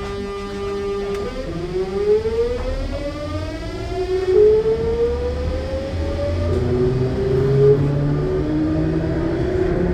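Sotetsu New 7000 series electric train's VVVF inverter whining as the train pulls away under low running rumble: a steady tone for about a second, then several tones gliding upward together as it accelerates, the pattern shifting to stepped rising tones about six seconds in.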